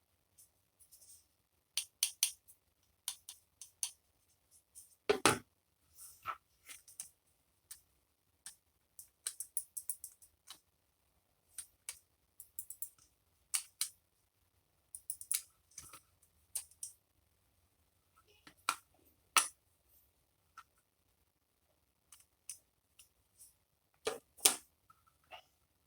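Irregular light clicks and taps of small hard plastic and metal parts being handled on a work surface, with a few louder knocks about five, nineteen and twenty-four seconds in.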